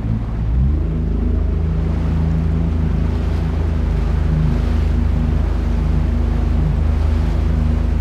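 A small boat's motor running under way. About half a second in, its pitch and loudness step up as it is throttled up, and it then holds a steady hum.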